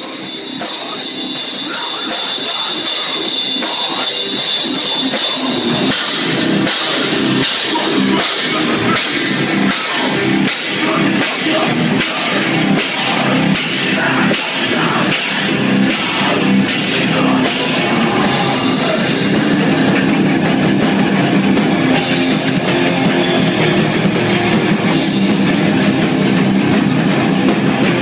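Hardcore metal band music with drum kit and distorted guitar, fading in over the first few seconds. From about six seconds in, sharp accented hits land about twice a second, and the playing turns denser from about nineteen seconds in.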